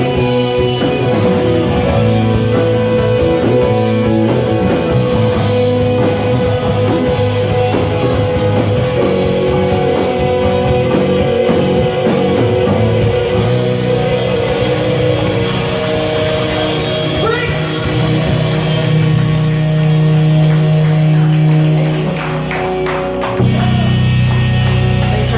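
Live rock band performing a song with singing, guitar and drum kit, playing steadily.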